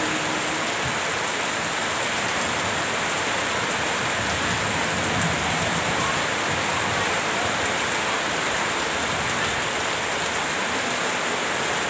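Heavy rain falling steadily on leaves and muddy ground, an even, unbroken hiss.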